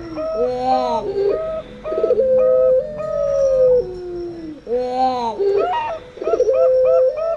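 Zebra dove (perkutut) and puter pelung dove cooing together. Quick stepped coo phrases are mixed with a long drawn-out coo that falls in pitch, and the whole sequence repeats about every four and a half seconds.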